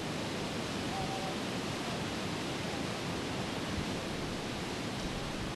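Steady rushing noise of flowing river water, with a faint short pitched call about a second in.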